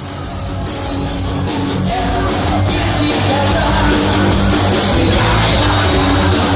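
A band playing rock-style music with drums, swelling in loudness over the first two seconds and then holding steady.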